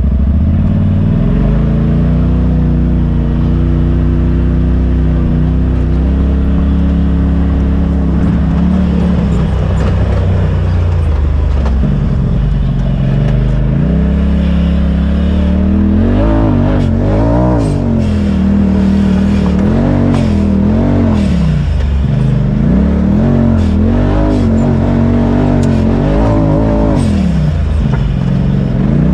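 Polaris RZR side-by-side engine running under load, heard from inside the cab: a steady drone at first, then from about halfway on repeatedly rising and falling in pitch as the throttle is worked.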